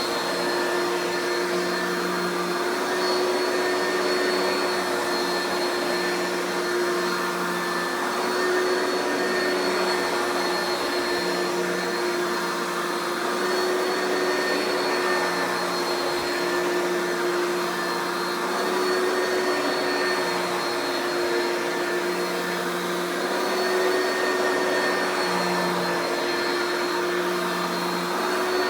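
Oreck XL2 Ultra lightweight upright vacuum running steadily, its motor's whine holding a constant pitch while the level swells and fades slightly every few seconds.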